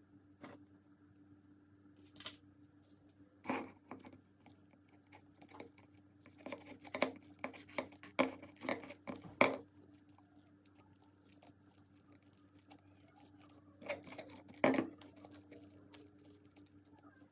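Slime being handled and squished by hand: irregular sticky crackles and small pops in clusters, over a faint steady hum.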